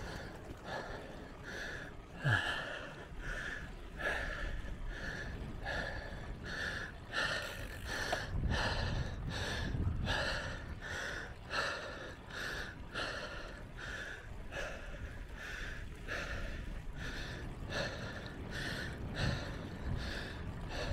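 A cyclist panting hard in a fast, even rhythm, about two breaths a second: out of breath from the climb.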